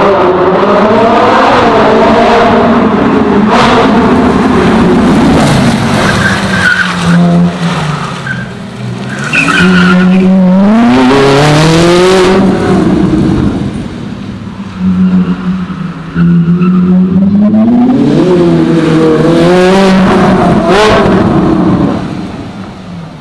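Ferrari 458 Italia's 4.5-litre V8 driven hard, on an exhaust the owner believes is not stock: repeated full-throttle runs with the pitch climbing through the gears, lifts and downshifts, and a few short sharp cracks. It drops away near the end.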